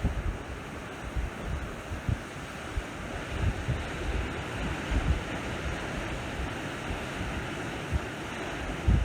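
Sea waves washing ashore as an even hiss, with wind buffeting the microphone in irregular low rumbles.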